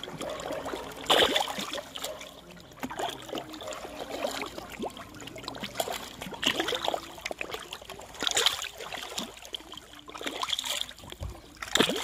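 Fish splashing at the pond surface as they feed on floating pellets, in irregular bursts over a low wash of moving water. The strongest splashes come about a second in and near the end.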